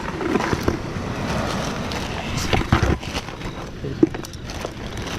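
Wind buffeting the microphone over the wash of surf, with a few short knocks a little past the middle.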